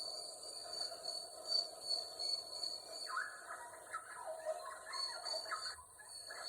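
Rainforest ambience: bird calls over a steady high thin tone. A run of quick chirping notes fills the second half, and the whole sound dips briefly near the end.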